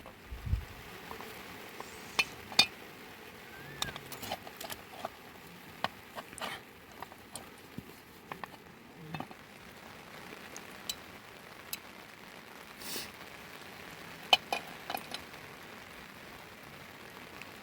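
Scattered light clinks and knocks, a few sharp ones, over a steady faint hiss.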